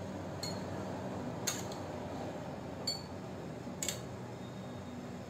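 A steel spoon clinking lightly against a steel bowl and glass goblets as syrup is spooned out, four short clinks about a second apart, over a faint steady background hum.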